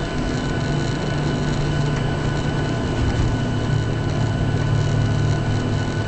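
Cabin noise of a Boeing 737-700 heard from a window seat over the wing: its CFM56 turbofan engines run steadily as the airliner rolls along the ground. There is a deep, even hum with a thin steady whine above it.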